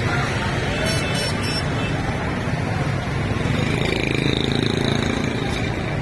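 Busy street-market ambience: a motorcycle engine running close by over a steady low hum of traffic, with background crowd chatter and a few brief rattles about a second in.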